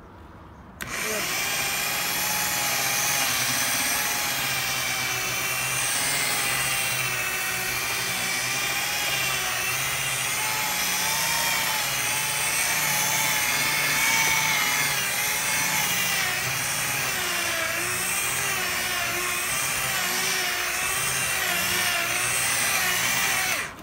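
Electric rotary polisher with a foam pad buffing polish into car paint at about speed setting 3: a steady motor whine whose pitch wavers slightly. It starts about a second in and cuts off just before the end.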